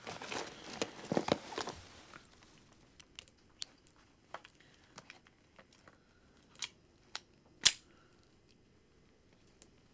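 Rustling and crinkling in a bag for about two seconds, then a snub-nosed revolver being loaded by hand: a string of small metallic clicks as cartridges go into the cylinder, with one sharp, louder click near the end.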